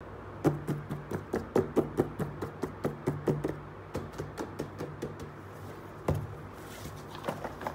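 Fingers tapping on a cardboard box lid, quick sharp taps about three or four a second that thin out after a few seconds, then a louder knock about six seconds in as the box is opened, followed by a brief soft rustle.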